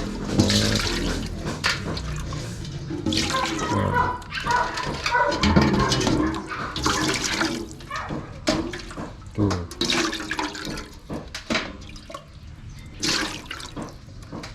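Liquid pouring and splashing in several uneven spells.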